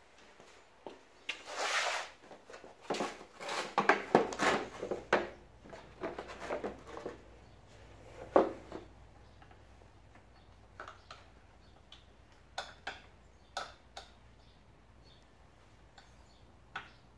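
Hand work on a small motorbike: tools and metal parts knocked, clinked and shifted, with scraping and rustling. A busy run of handling noises fills the first several seconds, the loudest knock coming a little past the middle, then only a few light clicks and taps follow.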